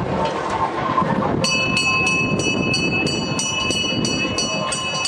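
A temple bell rung rapidly and evenly, about four strikes a second, starting about a second and a half in, during the lamp offering (arati), over a steady murmur of the crowd.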